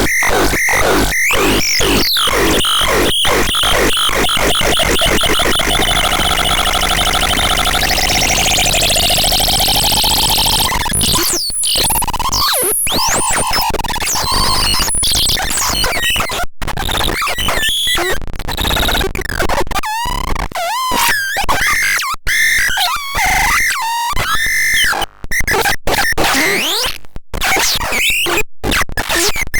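Electronic synthesizer making noisy, harsh tones. A fast pulsing speeds up until the pulses run together, a tone sweeps upward about eight to ten seconds in, and then choppy fragments of bending pitches follow, with sudden cut-outs.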